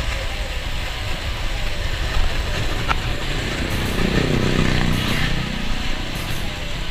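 A motorcycle engine passes close by about four seconds in, its pitch shifting as it goes past. It sits over a steady rumble of wind and rolling noise from a bicycle coasting downhill on concrete.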